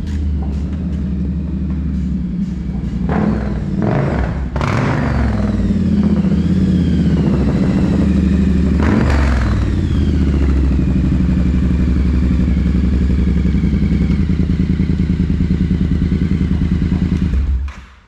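Triumph Bobber's parallel-twin engine idling, with the throttle blipped three times so it revs up and falls back, then shut off near the end.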